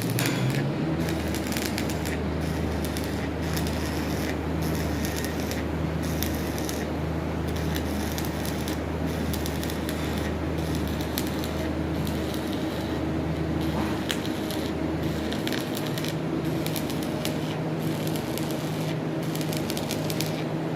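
Electric arc welding: the arc crackling and sizzling steadily, with a low hum underneath that stops about three-quarters of the way through.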